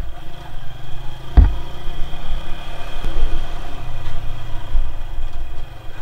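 Small motor scooter engine running at low speed, with a sharp thump about a second and a half in.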